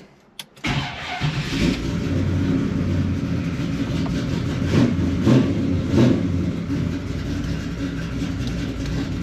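A 1972 Chevrolet Chevelle SS engine starts about half a second in and then runs steadily, with a few short rises in revs near the middle.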